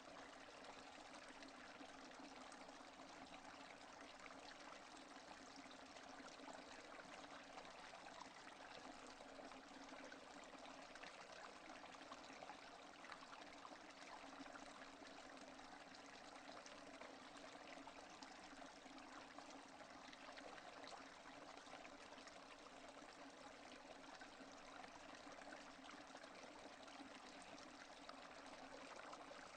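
Steady, quiet rain falling: an even hiss with fine pattering of drops, unchanging throughout, with no thunder.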